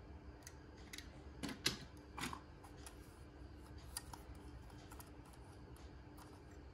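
Faint clicks and light taps of small toy cars being handled and swapped between the fingers, with a few louder taps between one and two and a half seconds in and another about four seconds in.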